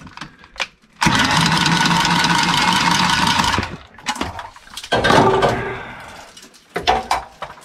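Milwaukee M12 cordless copper tubing cutter running steadily for about two and a half seconds, starting about a second in, as it cuts through copper pipe. A shorter burst of sound follows about five seconds in.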